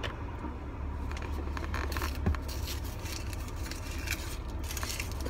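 Paper straw wrapper crinkling and tearing as a drinking straw is pulled out of it, in short crisp rustles. Under it is the steady low hum of the car's engine and air conditioning, with a soft knock about two seconds in.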